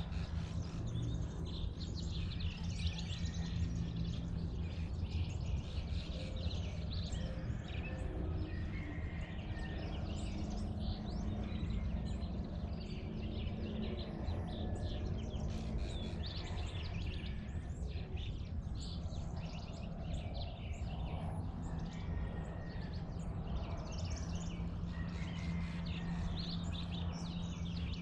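Dawn chorus of many small birds chirping and singing over one another, over a steady low hum.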